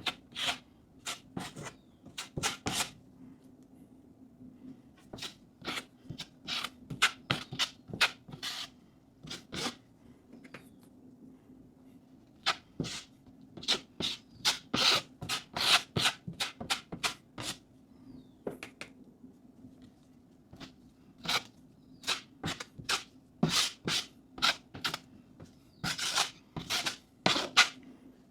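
Putty knife spreading and scraping joint compound over fiberglass mesh tape on a drywall patch: short scraping strokes come in irregular clusters, with a few pauses of a second or two. A faint steady hum lies underneath.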